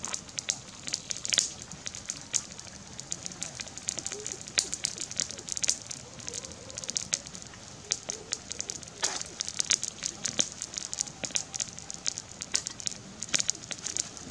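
Knife scraping and cutting a catfish against a rock: irregular sharp clicks and scrapes, some louder than others, with no steady rhythm.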